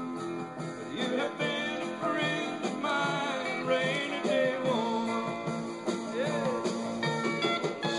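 Country music with guitar and band playing from a vinyl record on a turntable.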